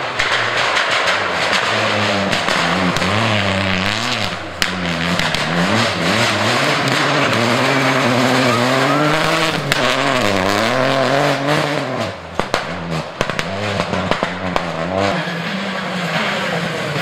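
Rally car engine revving hard on a gravel stage as it approaches and passes, its pitch climbing and dropping repeatedly with the gear changes and throttle lifts, over the hiss of tyres on loose gravel. The engine note dips about twelve seconds in, with a few sharp clicks.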